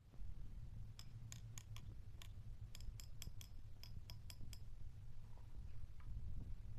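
About fifteen sharp, small clicks in quick, uneven succession over roughly three and a half seconds, over a low steady rumble.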